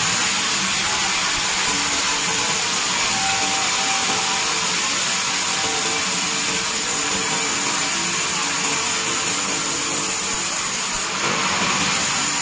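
Vertical band sawmill ripping a board from a timber on its carriage: the blade running steadily through the wood with a high, even hiss, briefly dipping about eleven seconds in.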